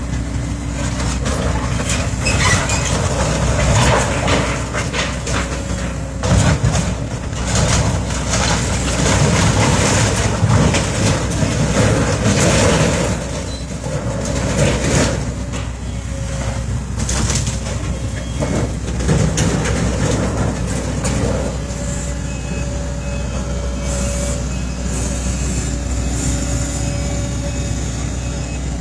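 Heavy demolition machinery at work: a diesel engine running steadily under loud crunching and clattering of debris, busiest in the first half. Short repeated beeps sound in the second half.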